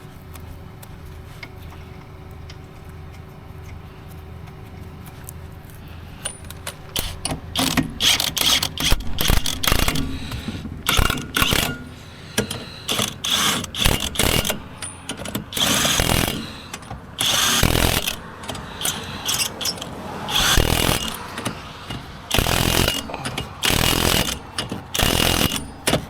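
An impact wrench run in repeated short rattling bursts with pauses between them, spinning on and tightening the lug nuts while the spare wheel is mounted. A low steady hum comes first, for the first several seconds.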